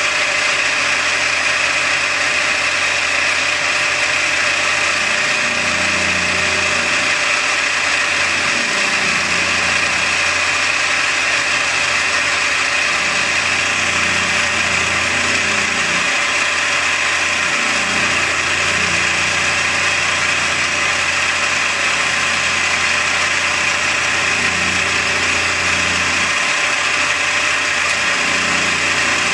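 TL20 metal lathe running steadily while a carbide insert tool turns a metal ball knob, a steady high whine over the motor's hum.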